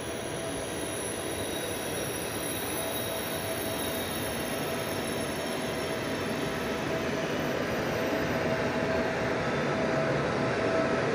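A train approaching along the tracks: a steady rolling rumble that grows slowly louder, with a steady whine above it.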